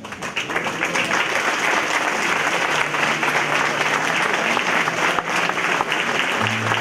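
Congregation applauding: many hands clapping at once, swelling up within the first half-second and then holding steady.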